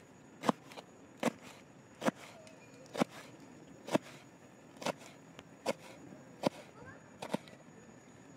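Knife chopping on a cutting board: about ten slow, evenly spaced chops, roughly one a second, each a sharp knock.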